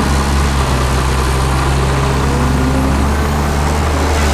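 Hyundai Robex crawler excavator's diesel engine running steadily with a low, even hum while it tips a bucket of soil into a dump truck bed.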